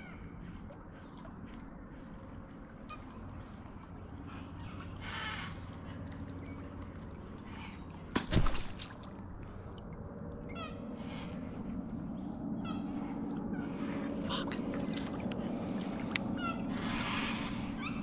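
Small birds chirping over a calm river, with one sharp knock about eight seconds in. From about twelve seconds on, a low steady churning grows as a surface lure is wound back to the kayak.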